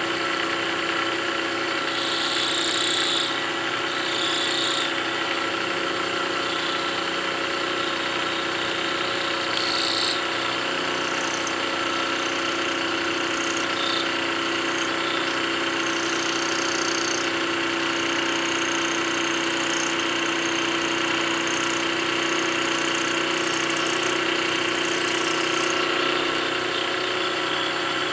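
Milling machine running steadily while a quarter-inch end mill cuts a radius into a metal part, with patches of high-pitched cutting noise coming and going over the steady machine hum.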